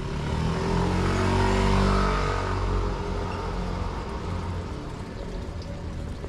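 A motor vehicle passing close by on the street, its engine hum swelling to a peak about two seconds in and then fading away, over steady traffic noise.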